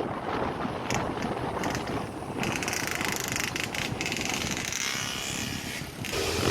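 Wind buffeting the microphone over the running noise of a vehicle on the move, with a few scattered clicks.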